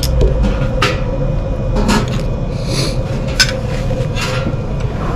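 Dishes and cutlery clinking: a handful of separate, irregularly spaced clinks over a steady hum.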